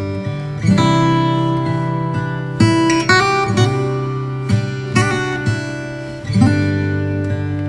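Background music: acoustic guitar strumming chords, each new chord struck sharply about every one to two seconds.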